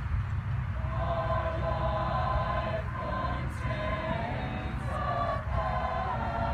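Mixed teenage school choir singing held chords. A phrase starts about a second in, with short breaths between phrases, over a steady low rumble.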